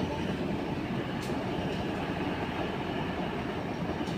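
Steady low rumble of running machinery, with a faint click about a second in.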